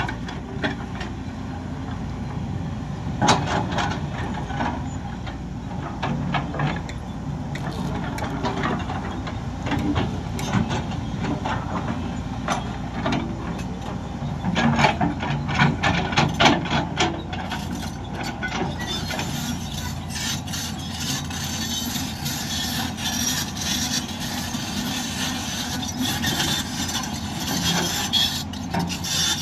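Diesel construction machinery running steadily, with many sharp clanks and knocks over the engine's rumble; the sound turns hissier about two-thirds of the way through.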